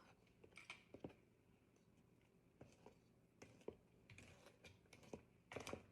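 Near silence with faint, scattered light taps and clicks of a spoon stirring cupcake batter in a mixing bowl.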